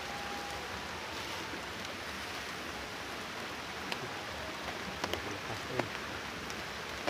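Steady hiss of rain falling, with a few small sharp clicks about four to six seconds in.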